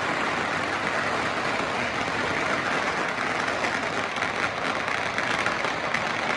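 Very many firecrackers and fireworks going off at once, merging into a steady, dense crackling roar.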